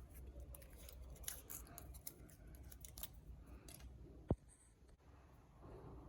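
Packaging handled during an unboxing: a run of small crisp clicks and snips, then one sharp knock a little over four seconds in.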